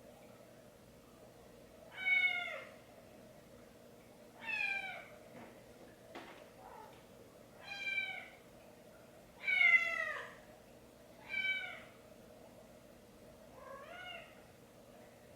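A cat meowing repeatedly: six short meows, each falling in pitch, about every two seconds, the last one fainter.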